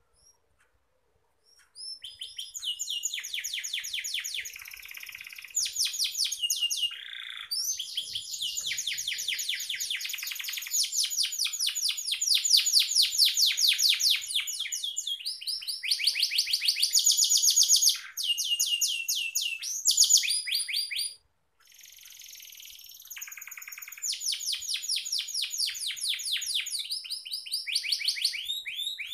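Domestic canary singing: long, fast trills and rolling phrases of high, rapidly repeated notes, changing pattern every few seconds. The song starts after about two seconds of quiet and breaks off briefly about two-thirds of the way through.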